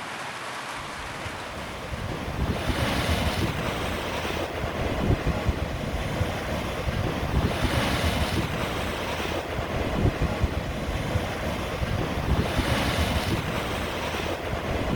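Heavy rain, a dense rushing hiss over a low rumble, the hiss swelling about every five seconds.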